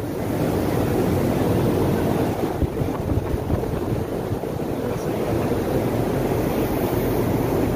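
Steady, loud background din of a busy exhibition hall, an even rumbling noise with no distinct voices or events.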